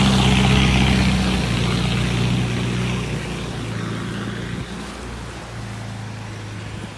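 Land Rover engine running steadily as it drives through a ford, with water splashing and rushing off its bow wave. Both fade as the vehicle pulls away, the splashing dying down after the first second or two.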